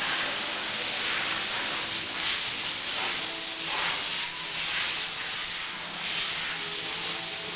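Steady hiss of rushing air or spray that swells and eases every second or so, with faint steady tones underneath.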